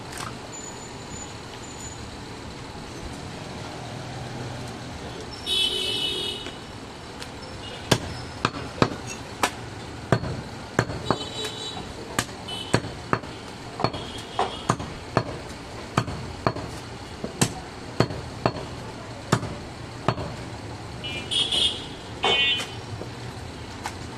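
Cleaver chops striking a wooden chopping block, sharp and regular at about one and a half a second, starting about eight seconds in. A brief high-pitched honk sounds twice, once before the chopping begins and once near the end.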